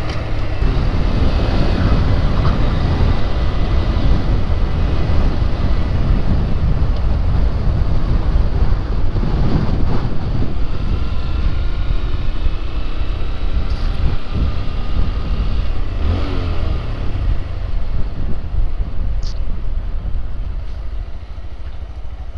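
Heavy wind rush on a GoPro microphone while riding a Honda Grom at speed, around 60 mph, with the Grom's small single-cylinder engine faintly heard under it, its pitch sliding now and then. The noise eases over the last few seconds.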